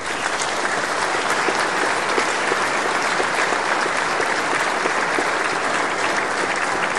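Large audience applauding: many people clapping steadily in a full parliamentary chamber.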